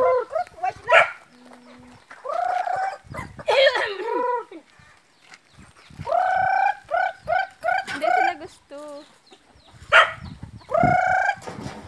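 Native chickens calling, with roosters crowing and hens clucking, in loud bursts of calls every few seconds.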